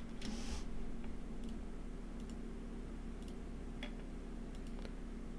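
Faint computer mouse and keyboard clicks, scattered about once a second, over a steady low hum.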